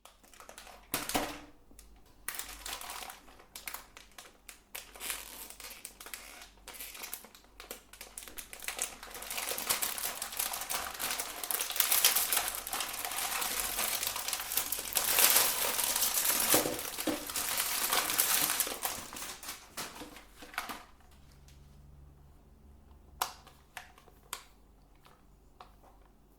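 Meat grinder crushing and grinding a crunchy item: irregular crackling and crunching that thickens into a dense, continuous crunch in the middle, then thins to a few scattered cracks over a faint low hum near the end.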